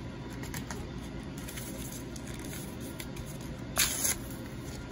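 Foil wrapper of a Magic: The Gathering Double Masters booster pack crinkling in the hands, then torn open with a short loud rip about four seconds in.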